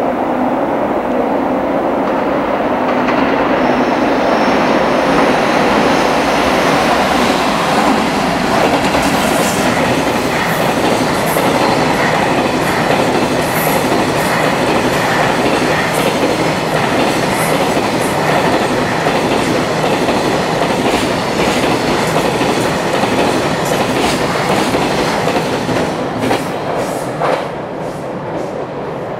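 Long electric-hauled freight container train passing at speed, wheels rumbling and clattering steadily over the rail joints. Near the end it eases off to a few last clatters as the final wagons go by.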